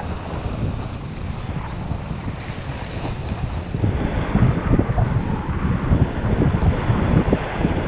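Wind buffeting the camera microphone in gusts, over small lake waves washing onto a sandy shore. The buffeting grows stronger about halfway through.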